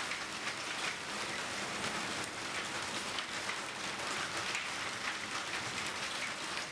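Hail and heavy rain pelting a translucent overhead roof: a dense, steady clatter of countless small impacts.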